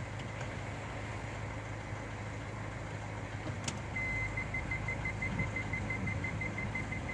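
Kia Carens engine idling in the cabin, with a click about three and a half seconds in as the gear selector goes into reverse. Right after, a rapid, evenly spaced electronic beep starts: the car's reverse-gear warning, sounding with reverse engaged.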